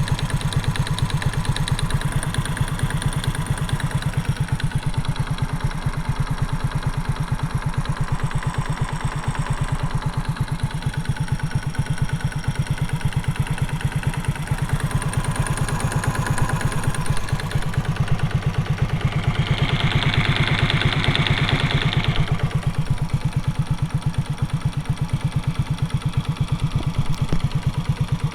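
Honda Super Cub's air-cooled single-cylinder four-stroke engine, bored up to 88cc, idling steadily with an abnormal metallic knock that the owner suspects may be piston slap. A brief hiss comes in about twenty seconds in.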